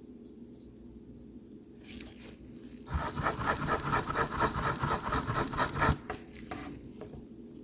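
Soldering iron tip being scrubbed in a brass-wool tip cleaner: a few light scrapes, then rapid rhythmic scraping at about six strokes a second for about three seconds, tailing off. This cleans oxidation and old solder off the tip before it is re-tinned. A steady low hum runs underneath.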